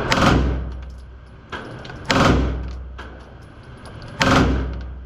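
Three gunshots fired about two seconds apart, each followed by a long echoing decay in the indoor range.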